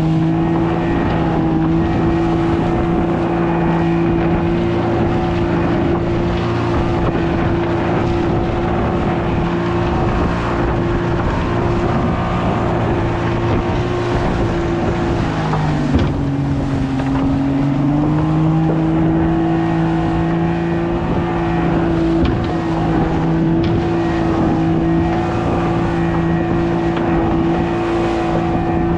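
Outboard motor of a small fibreglass fishing panga running hard through surf, with water rushing and splashing along the hull. About halfway through, the engine note drops for a couple of seconds, then picks back up to a steady pitch.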